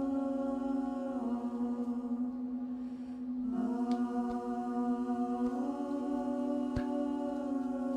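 Ambient meditation music: a sustained choir-like drone chord that shifts to new notes every couple of seconds, with a few faint clicks.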